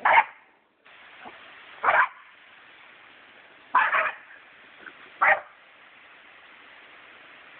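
Jack Russell Terrier puppies barking: four sharp barks about one and a half to two seconds apart, over a steady hiss of water spraying from a garden hose.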